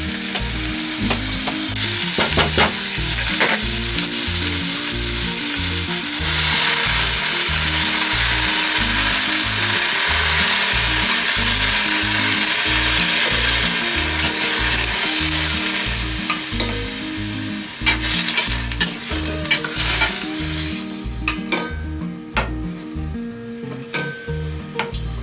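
Sliced long green onion and crab sticks sizzling in hot oil in a stainless saucepan. The sizzle swells about six seconds in, fades after about sixteen seconds, and gives way to a few light clicks of utensils against the pan.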